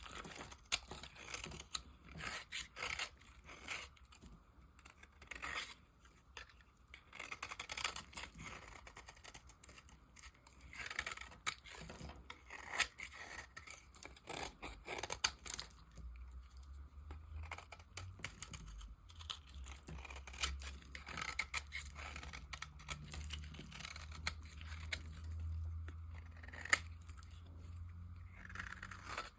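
Bar of dry soap being cut and carved with a blade: a long run of irregular, crisp scraping and crunching strokes.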